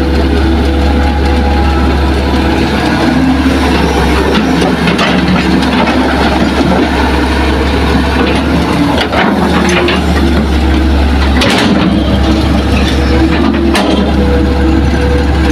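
Hitachi hydraulic excavator's diesel engine running steadily with a heavy low hum while the machine swings a bucket of soil over a dump truck and dumps it, with a few short knocks along the way.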